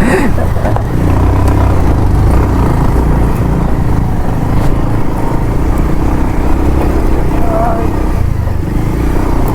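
Bajaj Pulsar 150 motorcycle's single-cylinder engine running steadily while under way, with a heavy low rumble throughout.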